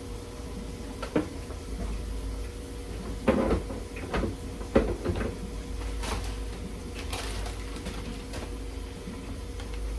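A knife knocking on a cutting board in short, irregular strokes while chopping, over a steady hum.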